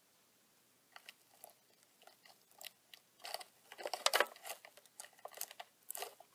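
Irregular scratchy clicks and rustles, thickest a few seconds in, as a Heteroscodra maculata tarantula grapples a large cockroach and drags it over cork bark and webbing in a plastic enclosure.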